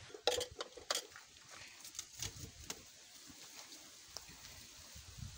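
A wooden stirring stick knocking and scraping in a metal cooking pot of greens, with a few sharp clinks in the first second, then an enamel plate being handled and set on the pot as a lid.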